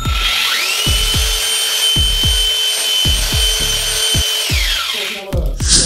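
Electric rotary hammer drill boring into the wall through a urinal's mounting hole: the motor whine rises as it spins up, holds steady for about four seconds, then falls away as the trigger is released. A deep, thumping music beat runs underneath.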